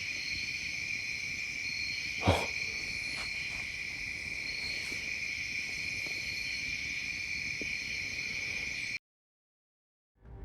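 Night insects, crickets, trilling steadily in a high chorus. A single sharp knock sounds about two seconds in, with a few faint ticks after it, and the recording cuts out near the end.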